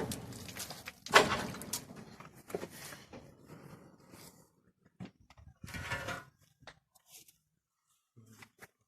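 Knocks and scraping of hard objects being moved about: a sharp knock with a scrape at the start, another about a second in trailing off into rubbing, scattered clicks, and a shorter scrape around six seconds.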